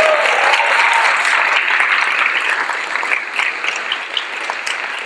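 Crowd of about 350 people applauding, loudest at the start and thinning out toward the end.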